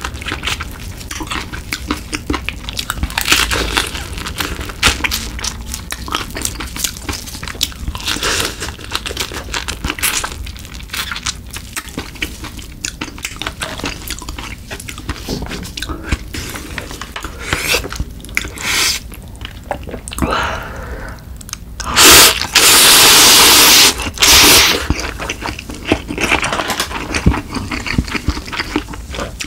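Close-miked eating sounds of a snow crab meal: chewing, with many small crackles and snaps of crab shell being handled and broken by hand. A loud, harsh crunching burst of about two seconds comes near the end.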